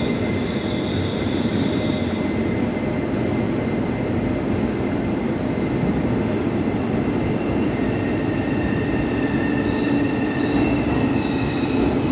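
Trains running through a covered station: a steady rumble and rolling noise, with thin high brake or wheel squeals coming and going throughout. By the end an orange-and-white push-pull Tze-Chiang express is pulling in on the next track.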